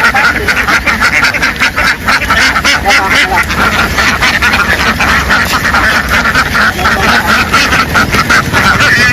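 A large flock of domestic ducks quacking, many short calls overlapping into a continuous din.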